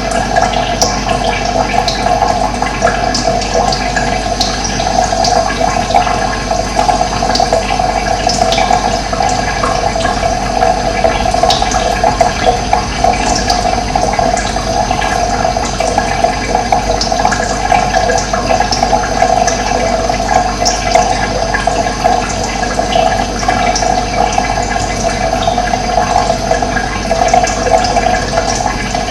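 Running water flowing steadily, with small birds chirping over it in short, scattered calls.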